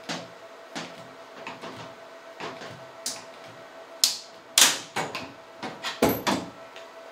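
Irregular knocks, clicks and clanks of hand work on metal electrical conduit and its fittings. The sharpest, loudest clanks come in a cluster in the second half. A faint steady hum runs underneath.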